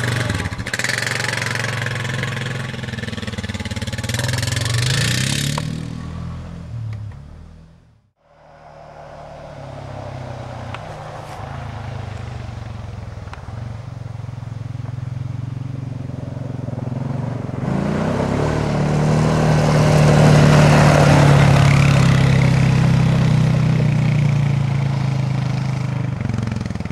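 Honda 4x4 ATV engine revving as it pulls away and fading into the distance, cutting out about eight seconds in. It then comes back, growing louder as the ATV approaches, loudest about two-thirds of the way through, then easing slightly.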